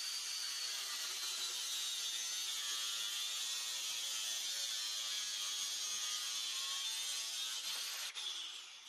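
Angle grinder running at full speed as its blade is fed through a thin wooden strip in a sliding guide jig. About eight seconds in it is switched off, and the motor's whine falls away as it spins down.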